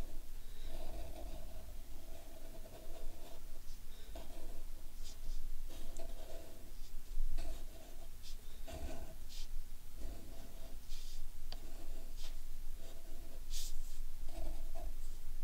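A marker drawing on paper in a series of short, irregular strokes as small rock shapes are outlined.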